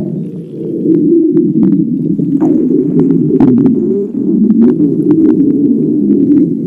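Empty stomach growling from hunger: a long, continuous low rumble that starts suddenly, with short clicks scattered through it.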